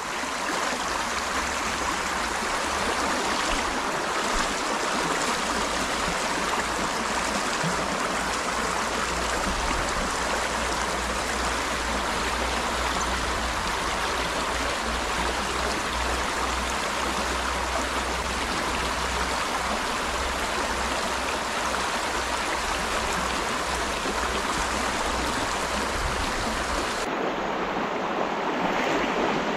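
Shallow river rushing steadily over a stony riffle, the water running a little high.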